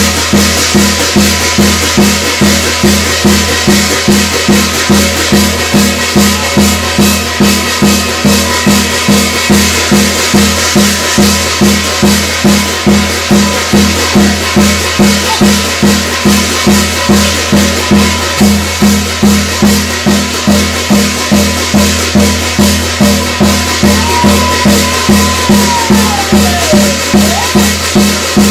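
Korean shamanic gut ritual music: a drum beating a steady, even rhythm of about three strokes every two seconds, with rattling high percussion over it. Near the end a short high tone slides down and back up.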